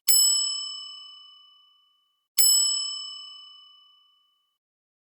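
A bell-like chime struck twice, about two and a half seconds apart. Each strike rings out with a bright metallic tone and fades away over about two seconds.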